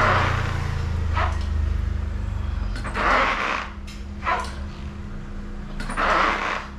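A man breathing out hard with each abdominal crunch: a strong hissing breath about every three seconds, each followed by a weaker breath.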